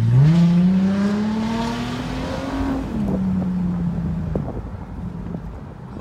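2010 Ford Mustang's 4.0-litre V6 through a muffler-deleted exhaust with added pipes, heard from inside the cabin under hard acceleration. The engine note climbs steadily, drops in a step about three seconds in as the automatic shifts up, then holds and fades.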